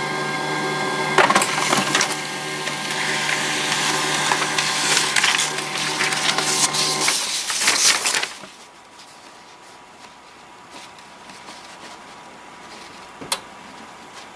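HP LaserJet 1022 laser printer running a print cycle: a steady motor hum under a rough, crackling squeak from its feed mechanism, with clicks along the way. It stops about eight seconds in, and one sharp click follows near the end.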